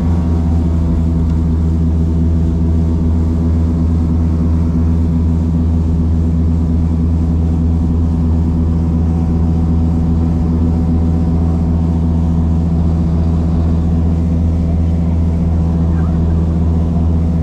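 A Douglas DC-3's twin radial piston engines and propellers droning steadily at constant power, with an even, unchanging pitch.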